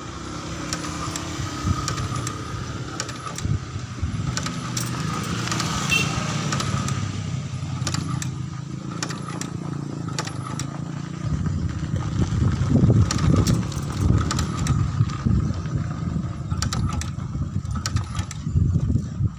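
Motorized shoe-sole stitching machine running steadily, with a low hum, a thin steady whine and scattered sharp clicks; it grows louder and rougher about twelve seconds in.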